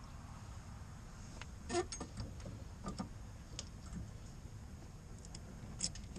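Scattered small clicks and taps from hands working parts and tools, the loudest about two seconds in, over a low steady hum.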